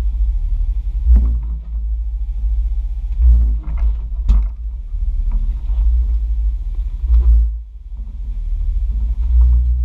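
Deep, steady rumble from a Jeep crawling slowly over a rocky trail, picked up by a camera mounted on the vehicle's side. Several knocks and clunks sound over it, four of them clearly: about a second in, twice around three to four seconds, and again past seven seconds.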